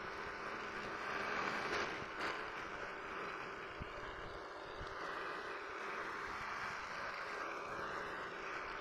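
Milling machine running with an end mill taking a light cut along the edge of a metal block: a steady cutting hiss over a steady hum.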